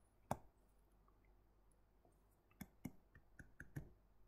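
Faint clicks of a stylus tapping on a tablet screen while handwriting: one near the start, then a cluster of about six a little past halfway.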